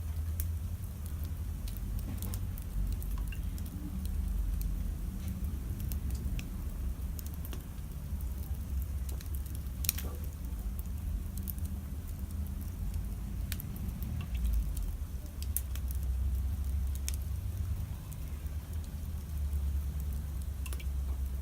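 Campfire crackling, with sharp pops scattered irregularly throughout, one of the loudest about ten seconds in, over a steady low rumble.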